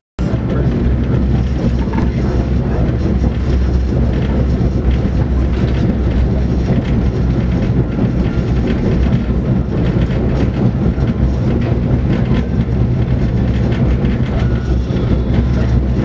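Passenger train of the Cuyahoga Valley Scenic Railroad riding along the rails, heard from aboard: a steady, loud rumble with a low drone underneath and faint clicks from the wheels on the track.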